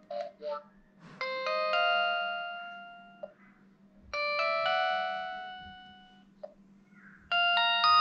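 T-Mobile Sidekick II (Hiptop 2) playing an alert tone through its small speaker: a bell-like chime of three quick notes that ring out and fade, repeated three times about three seconds apart. Two short blips come just before the first chime.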